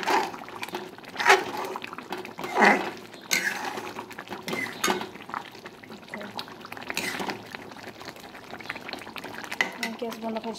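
Metal ladle stirring thick curry in an aluminium kadai, scraping and clanking against the pan about six times at irregular intervals, with the curry bubbling between strokes.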